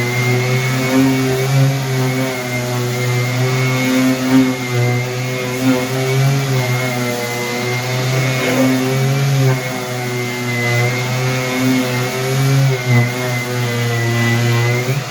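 A power tool motor running continuously while cutting, its pitch wavering slightly as the load changes. The sound changes abruptly at the very end.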